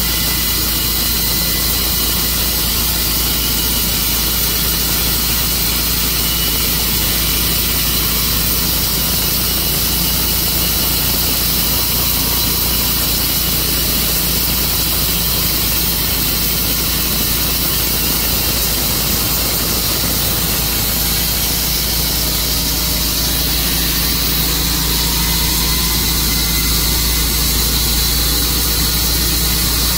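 Tru-Cut sawmill's engine running steadily, a loud even drone that grows slightly louder in the last few seconds.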